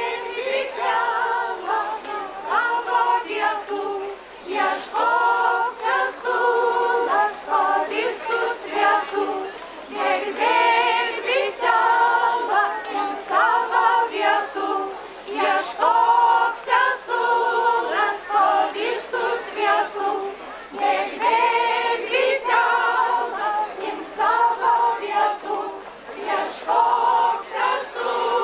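Women's folk ensemble singing a Lithuanian folk round-dance song unaccompanied, in repeated phrases a few seconds long.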